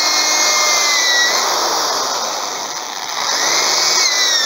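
Corded electric drill running, its bit boring a hole through the wooden rim of a pandeiro. The motor whine drops in pitch twice, about a second in and near the end.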